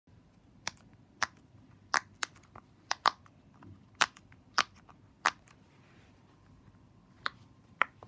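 Silicone pop-it fidget toy, its bubbles pressed in one by one with the fingers: about a dozen sharp pops at an uneven pace, with a pause of about two seconds before the last two.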